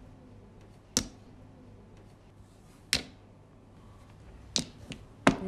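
Mahjong tiles clacking: four sharp, separate clicks spread a second or two apart, with a fainter one near the end, over a faint low hum.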